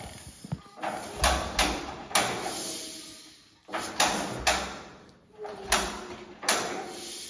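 A run of irregular metal clunks and scrapes, about seven, from hands-on work on a vintage steel-wheeled tractor. Each is a sudden knock followed by a short sliding rattle.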